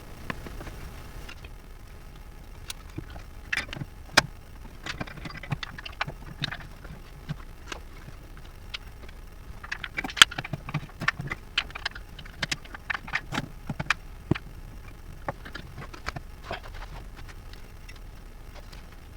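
Irregular small metallic clicks, clinks and taps of hand tools and parts during work under a car, fitting a new oxygen sensor and its wiring. The clicks come unevenly, thickest in the middle stretch.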